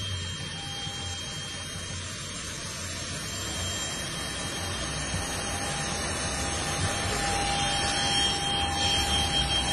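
Business jet's turbine engines running: a steady hiss with a thin high whine, growing louder over the second half.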